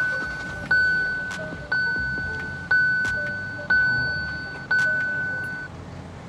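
Kia Seltos electronic warning chime, a single clear tone sounding about once a second, six times. Each chime fades before the next one, and they stop near the end.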